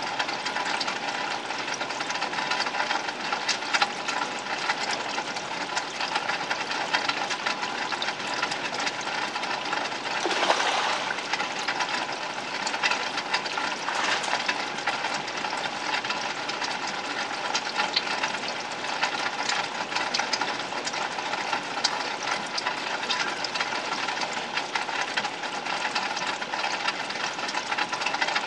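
Steady rush of running, splashing water in a garden pond, with many small droplet-like clicks and a brief louder swell about ten seconds in.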